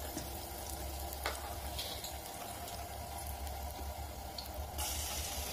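Hot oil sizzling gently in a kadai with a pinch of asafoetida (hing) just added: a steady hiss over a low hum, growing brighter about five seconds in.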